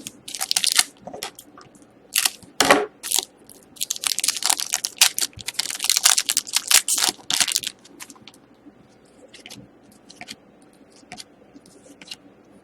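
Hockey trading cards and their pack being handled: bursts of crinkling, rustling and sliding, densest in the middle, thinning to a few faint ticks near the end.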